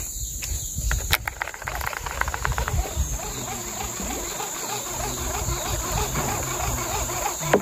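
Tropical forest insects keep up a steady high-pitched drone. A little after a second in, a knock is followed by a quick run of ticks lasting about a second and a half. Rough low handling or water noise runs underneath, with another sharp knock near the end.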